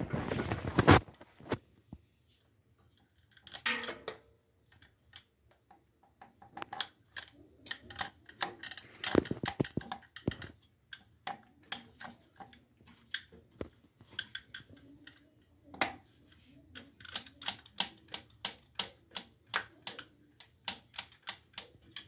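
Hand-held silicone caulking gun clicking as its trigger is worked to squeeze sealant onto a washing machine tub. The sharp clicks come scattered at first, then several a second in a quick run near the end, with a few brief scrapes of handling noise.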